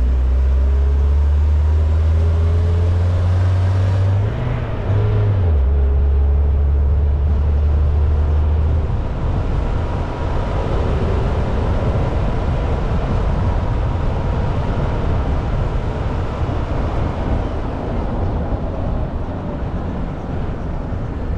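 A motor vehicle running with a strong low hum that shifts in pitch about four to five seconds in and fades out near nine seconds, over a continuous rushing noise.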